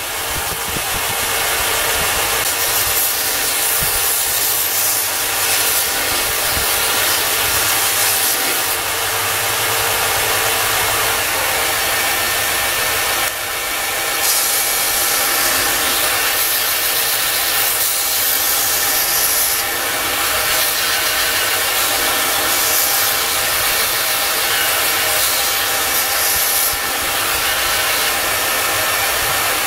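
Electric belt grinder running with a steel knife blade pressed to the abrasive belt, grinding the blade: a steady grinding hiss over the motor's hum. The hiss brightens in passes of several seconds and eases briefly between them as the blade is lifted and set back.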